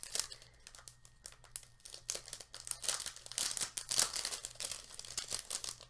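Packaging crinkling and rustling as it is handled and pulled apart, in a run of quick, irregular crackles that grows busier about two seconds in.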